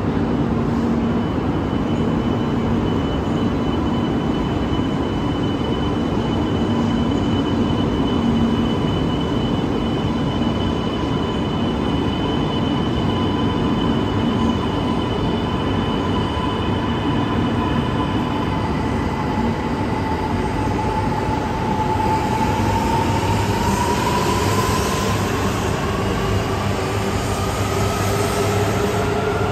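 E2 and E3 series Shinkansen coupled trainset pulling out along the platform and gathering speed: a steady rumble of the train running, with an electric whine that dips slightly and then rises in pitch over the last several seconds as it speeds up.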